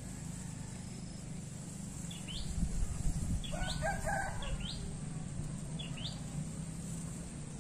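Outdoor bird calls: several short rising chirps, and one longer call about three and a half seconds in, over a steady low background hum.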